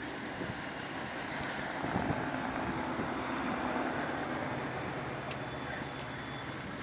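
Diesel freight locomotives running as the train approaches: a steady low engine drone over a wide background hiss, swelling slightly a couple of seconds in.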